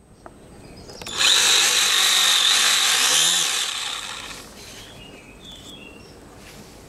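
Model airboat's small motor and air propeller, starting suddenly about a second in with a high whine and rushing air, running for a couple of seconds, then dying away.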